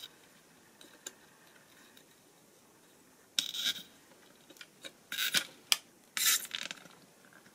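Soldering tool and component leads scraping on a circuit board while old electrolytic capacitors are desoldered and pulled out. The sound comes as three short scraping bursts, about three and a half, five and six seconds in, with a few small clicks between them.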